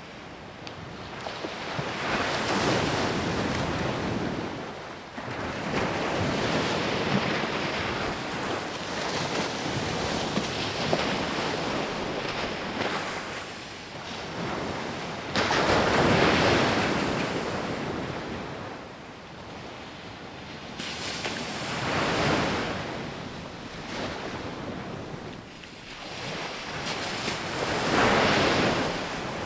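Ocean surf: waves breaking and washing up a sandy beach one after another, the rush swelling and fading every few seconds. The loudest wave comes in sharply about halfway through.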